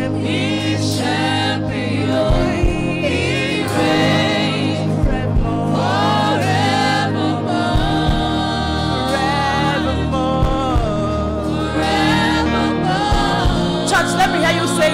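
Gospel choir singing a worship song with a live band: voices over sustained bass and keyboard chords and a steady drum beat.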